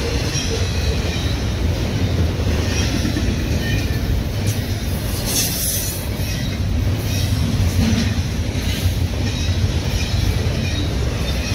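Double-stack intermodal container train rolling past at close range: a steady, loud rumble of well cars on the rails, with a brief high wheel squeal about five seconds in.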